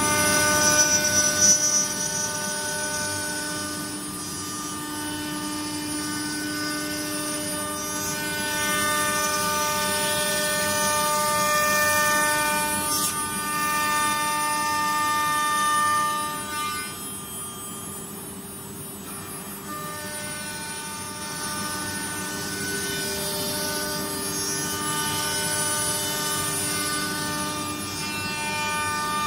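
CNC router running: the spindle gives a steady multi-tone whine over a hiss. The whine drops away for a few seconds just past the middle, then comes back.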